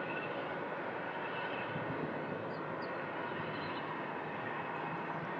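Steady, even roar of distant jet airliner engines and airport traffic, with a few faint high chirps in the middle.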